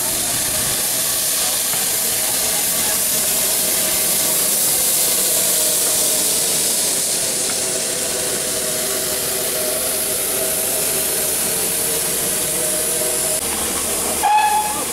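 Steady hiss of escaping steam from GWR Hall-class steam locomotive No. 4965 Rood Ashton Hall. A brief high-pitched tone sounds just before the end.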